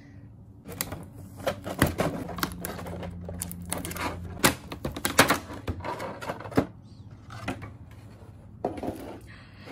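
Clear plastic blister tray and plastic bag being handled as a figure is pried out of its packaging: irregular crinkling with sharp clicks and snaps of the stiff plastic.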